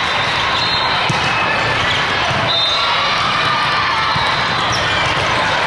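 Steady din of a hall full of volleyball courts: many voices chattering, with scattered ball hits and bounces and a few short high squeaks.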